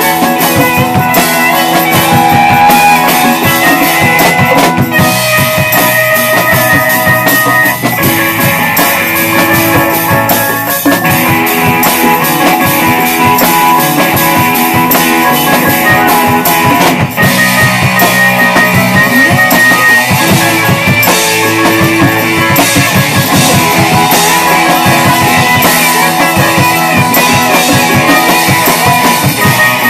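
Live rock band playing loudly: electric guitars and a drum kit with hand drums, music running without a break.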